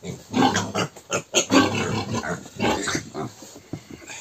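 Piglet squealing in short, irregular, repeated bursts while it is caught and held in a man's hands.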